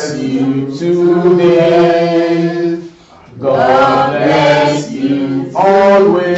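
A man chanting in long, held melodic phrases, breaking off briefly about three seconds in.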